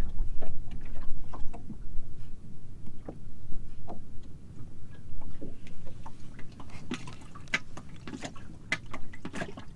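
Scattered small clicks and knocks of fishing tackle and gear in a small boat, over a low rumble, with the clicks coming more often in the last three seconds.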